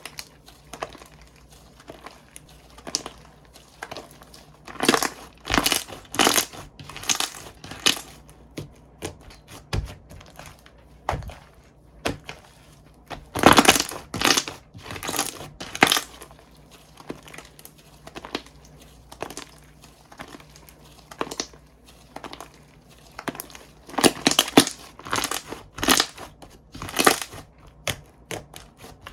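Hands squishing, pressing and stretching slime, giving irregular crackly, crunchy squishes that come in clusters, loudest about halfway through and again near the end.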